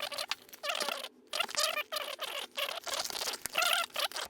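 A package being torn open by hand: packaging crinkling and tearing in short repeated bursts.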